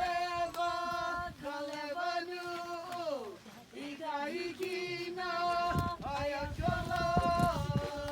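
A voice chanting in long held notes, each sliding down in pitch at its end, in the manner of a Hawaiian oli chant greeting the sunrise. A low rumble joins in about six seconds in.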